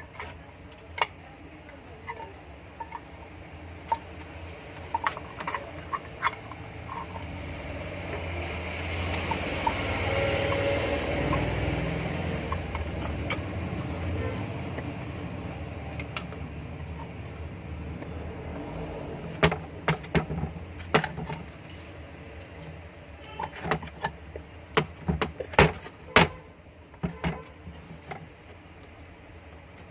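Small metal parts of an exhaust fan motor being handled during reassembly: scattered clicks and clinks, bunched together in the second half. Under them a low hum swells for several seconds in the middle and fades again.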